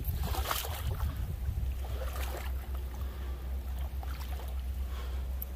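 Faint sloshing and splashing of water as a person wades and reaches into deep pond water, over a steady low wind rumble on the microphone.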